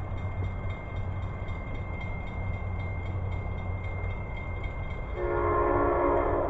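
Amtrak train's locomotive horn sounding one long chord of several notes, starting about five seconds in, over the steady low rumble of the approaching train.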